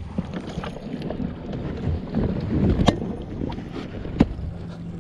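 Wind buffeting the microphone with handling rumble in an open boat, broken by two sharp knocks about three and four seconds in.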